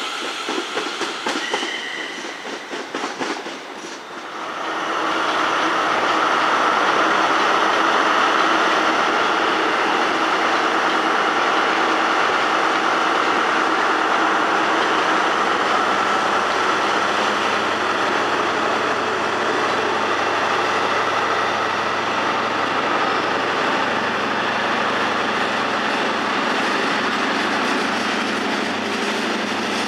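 A train moving through the station: its running noise swells in about four seconds in, then holds loud and steady, with a faint steady whine above it.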